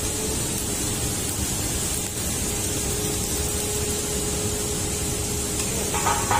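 Steady hiss of a stick (arc) welder burning a rod on a steel forklift fork. Near the end, a hammer starts striking the weld with a few ringing metallic blows, chipping off slag.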